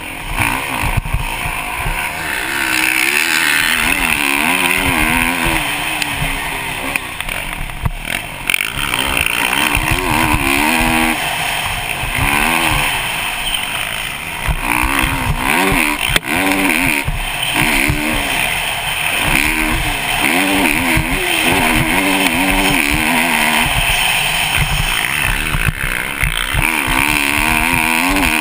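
Kawasaki KX450 dirt bike's four-stroke single-cylinder engine heard from a helmet-mounted camera, revving up and falling back again and again as the rider accelerates and shifts. A steady rush of wind noise sits under it, with occasional sharp knocks.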